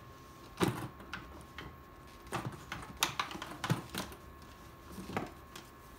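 Capsule-toy vending machine with a cardboard body having its dial turned by hand: a string of sharp clicks and knocks from the crank and the plastic capsules inside, bunched mostly between two and four seconds in.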